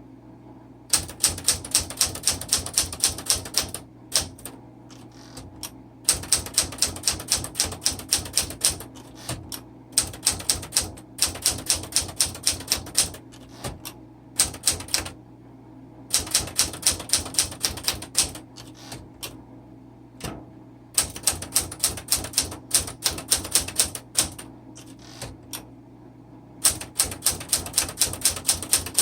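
Smith Corona Classic 12 manual typewriter being typed on: fast runs of sharp type-bar strikes, several a second, broken by short pauses every few seconds.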